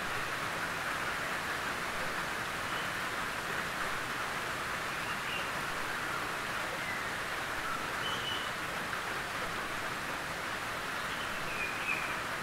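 Gentle rain falling steadily on a tin roof, an even patter with no thunder.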